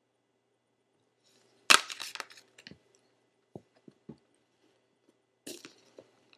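Handling noise from a sneaker being moved about close to the microphone: a loud burst of crackling clicks about two seconds in, then a few scattered single clicks and a shorter burst near the end.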